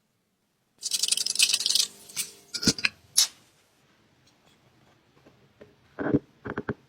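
Work sounds of metal handling: about a second of rough scraping, then three sharp clicks. After a quiet stretch, a few knocks come near the end.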